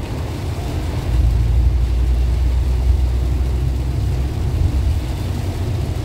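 Inside the cabin of a carbureted 1999 Toyota Kijang LGX driving through flood water in heavy rain: a loud, steady low rumble of the engine and drivetrain under a wash of water and rain noise, swelling slightly about a second in.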